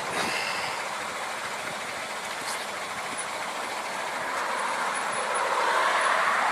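Road traffic noise, a steady rush that grows louder in the last couple of seconds as a vehicle passes close by.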